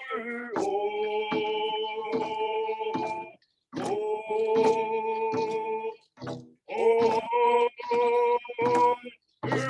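A group of voices singing together in long held notes, in phrases of about three seconds with short breaks, over a steady drumbeat.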